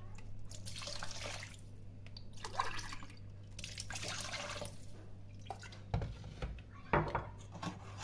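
Water poured from a glass into liquid sauce in a stainless steel bowl, splashing in three stretches over the first few seconds. Two dull knocks follow near the end.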